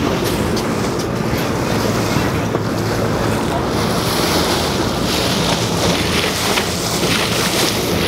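Wind buffeting the microphone and water rushing past the hull on the open deck of a moving ship, over the steady low drone of its engines. The rush of water grows stronger about halfway through.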